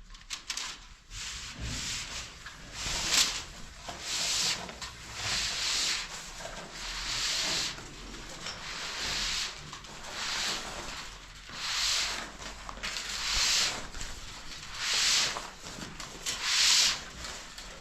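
Rhythmic abrasive rubbing strokes on a hard surface, a rasping hiss about once every second and a half.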